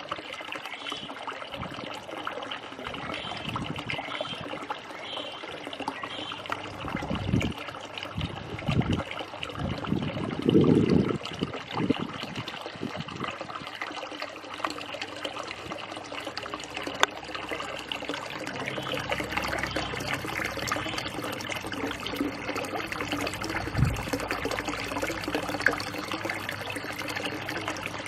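Water trickling steadily into a backyard pond, with a few low thumps about a third of the way in.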